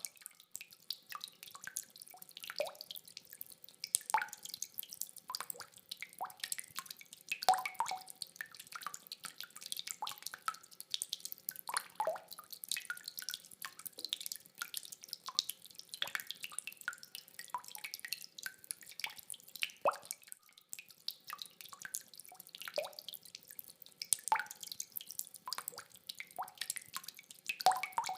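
Rainwater dripping: irregular drops, several a second, some landing with a short pitched plop.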